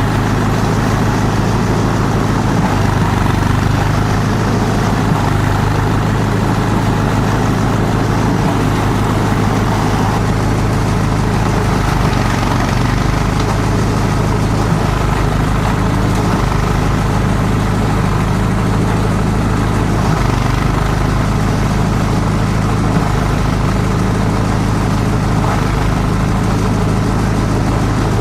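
Multi-purpose chopper-shredder machine running steadily: a loud, constant mechanical drone with a strong low hum.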